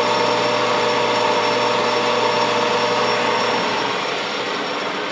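Metal lathe running with its chuck spinning during a light finishing cut of a couple of thousandths on a turned shoulder. It makes a steady machine whine with a low hum that drops away about three and a half seconds in.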